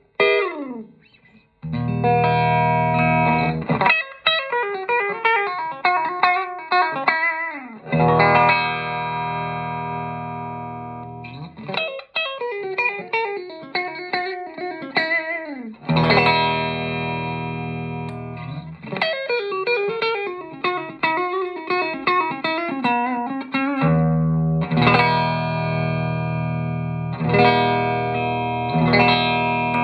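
A '53-style Telecaster electric guitar played through an amplifier. Ringing chords alternate with quick single-note runs that step downward, in phrases about four seconds long, with a short slide and brief pause near the start.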